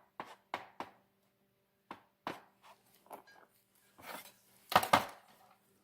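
Hands handling wires and soldering supplies at the bench: a scatter of small clicks, taps and rustles, the two loudest knocks close together near the end, over a faint steady hum.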